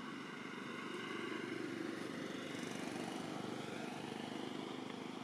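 Steady hum of distant motor traffic, growing a little louder about a second in and then holding.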